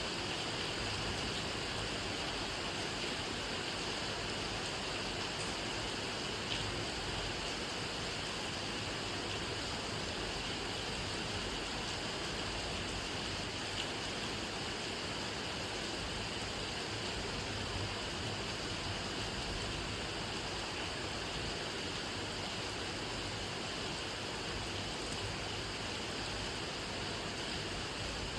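Steady rainfall, an even hiss with a few faint single drop ticks standing out now and then.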